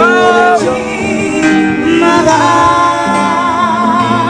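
Background music with a singer: a sung melody of held notes with vibrato over an instrumental backing.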